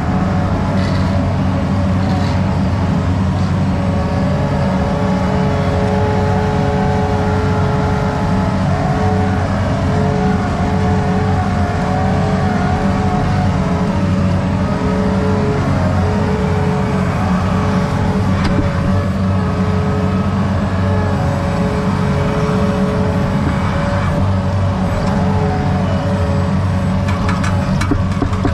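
Diesel engine of a compact earthmoving machine running steadily under load while working, with a steady whine over the engine note.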